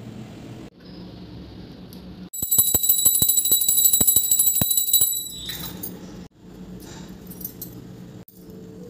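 Puja hand bell rung rapidly during the lamp-waving arati, its clapper striking several times a second. The ringing starts about two seconds in and stops after about three seconds, over a low steady hum.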